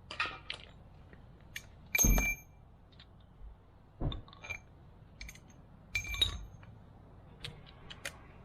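Metal objects clinking and knocking: a few sharp hits about two seconds apart, the loudest about two seconds in, some with a brief ringing, and light ticks between them.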